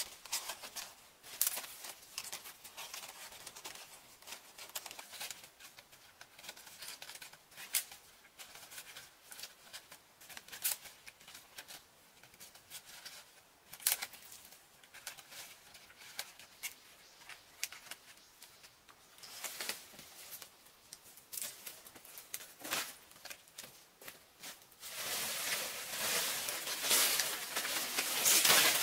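Palm-frond leaflets rustling and crackling as they are plaited by hand, with scattered sharp clicks as the stiff leaflets are bent and tucked. About 25 seconds in, a louder continuous rustling starts as a large palm frond is moved through the undergrowth.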